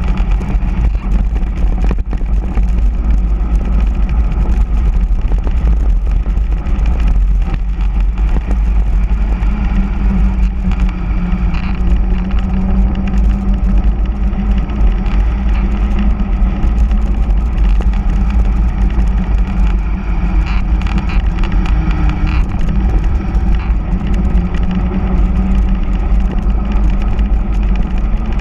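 Loud, steady wind buffeting the camera microphone on a mountain bike descending fast on asphalt, with the hum of its hard-pumped all-terrain tyres on the road.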